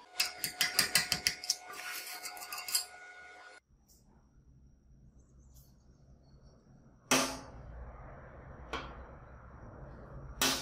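Rapid ringing metal-on-metal taps on the freshly welded steel jaw of a homemade welding clamp, for about three and a half seconds. Then, over a low hum, three sharp metal knocks as the finished square-tube clamp is handled and set down on a steel worktable.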